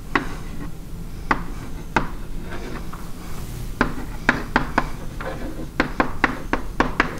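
Chalk tapping and ticking against a blackboard as a line of text is written: a few scattered sharp taps at first, then quicker runs of ticks from about four seconds in.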